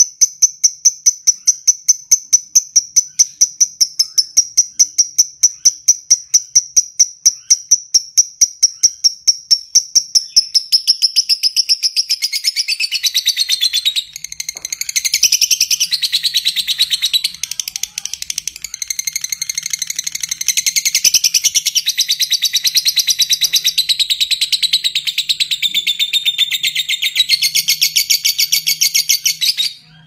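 Fischer's lovebird singing its long 'ngekek' chatter: a fast, even run of high chirps, about five a second, that about ten seconds in turns into a denser, more varied, unbroken chattering, cutting off suddenly at the very end.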